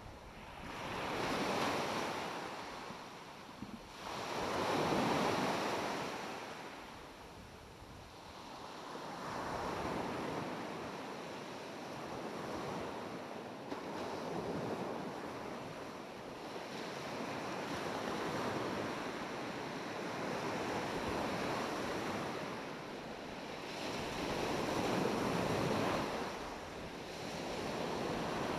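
North Sea surf washing up a sandy beach, the wash swelling and fading in slow surges every few seconds, loudest about two and five seconds in and again near the end.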